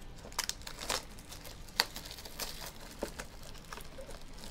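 Cellophane wrapping crinkling and crackling as shrink-wrapped trading card mini boxes are handled and pulled loose from their hobby box, with one sharp crack a little under two seconds in.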